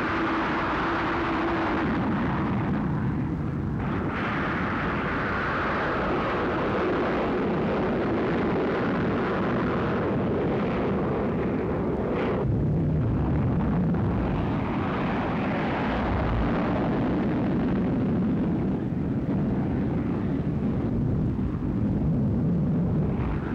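Spaceship's rocket engines firing at launch, a film sound effect: a loud, steady rushing noise that shifts in tone about four and twelve seconds in.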